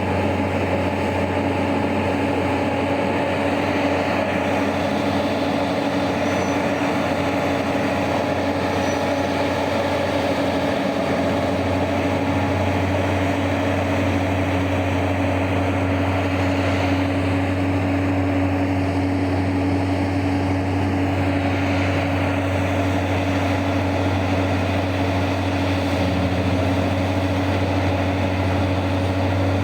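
Heavy mining machinery's large diesel engine running steadily, a constant low drone with a steady hum over it.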